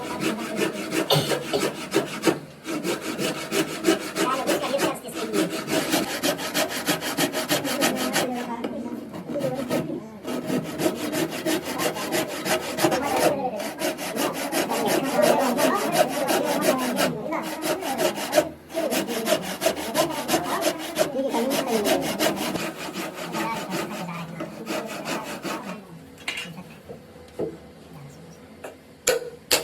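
Hand tool scraping across wood in long runs of rapid strokes, with brief pauses between passes. It dies down near the end.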